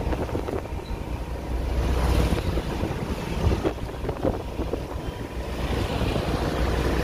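Wind buffeting the microphone with a steady low rumble, over faint street traffic, with a couple of short knocks near the middle.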